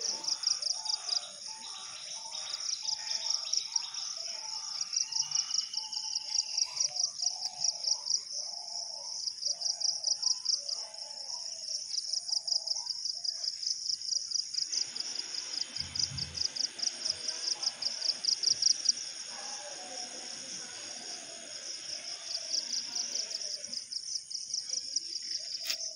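Insects trilling in a steady, high-pitched, fast-pulsing chorus, with a bird calling in a quick series of short repeated notes over the first half.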